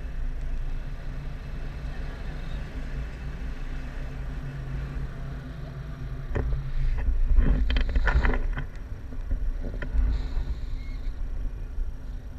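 Wind rushing over the microphone in flight under a paraglider: a steady low rumble, with a stretch of louder buffeting and knocks from about six to nine seconds in and another gust about ten seconds in.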